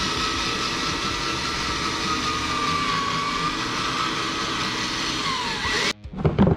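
A power tool running steadily with a hiss and a wavering high whine, cutting off abruptly near the end, in keeping with the window regulator being cleaned of old JB Weld.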